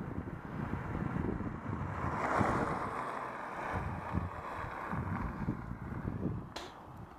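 Wind buffeting the camera microphone while riding a road bike, a gusty low rumble that swells to a broader rush about two and a half seconds in. A brief sharp hiss sounds near the end.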